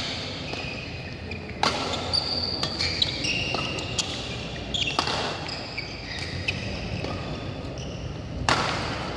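Badminton rackets hitting a shuttlecock in a rally: sharp clicks every second or so, the loudest near the end. Short high squeaks from shoes on the court mat come between the hits.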